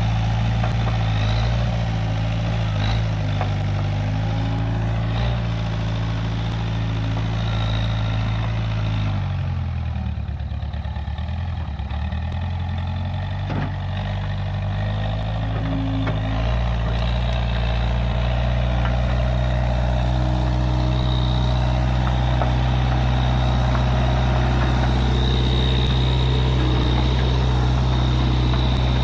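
Case 580G backhoe loader's diesel engine running steadily. About nine seconds in, the engine note drops lower for several seconds, then comes back up and holds steady.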